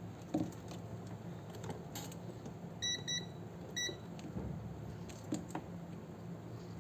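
Three short electronic beeps, two in quick succession and a third just under a second later, over a low steady hum, with a few light clicks.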